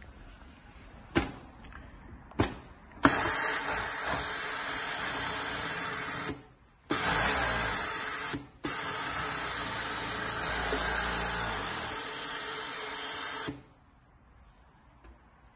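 Juki MO-6916R industrial overlock (serger) machine with a servo motor running at sewing speed, a steady whirr with a strong hiss of air from its waste-suction unit. It starts about three seconds in after two sharp mechanical clacks, pauses briefly twice, and stops about two seconds before the end.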